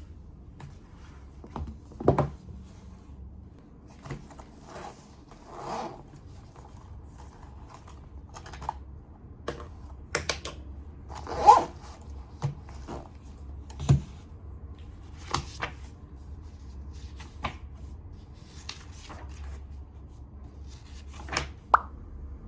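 Small indoor handling sounds: scattered clicks, taps and short rustles of objects being moved and handled, the loudest about halfway through, over a faint steady low hum.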